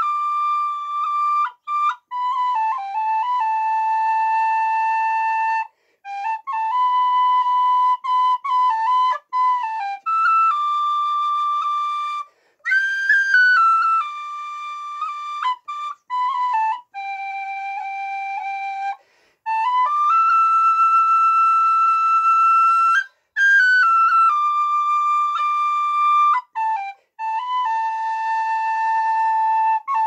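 Tin whistle in D playing a slow solo melody: one clear line of long held notes with quick grace-note flicks between them, broken by short breath pauses every few seconds.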